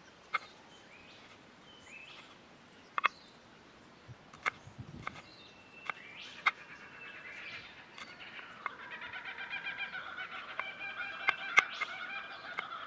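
A large knife chopping tomatoes and shallots on a wooden cutting board, with sharp knocks every second or two. From about two-thirds of the way through, a fast, chattering bird call builds up and grows louder behind the chopping.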